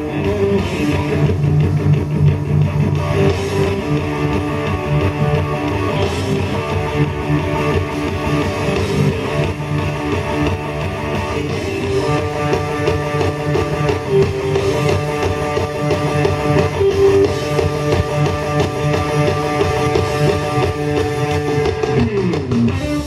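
Live blues-rock band with two electric guitars playing fast lead lines together over bass and drums. Near the end a note slides down in pitch as the song comes to a stop.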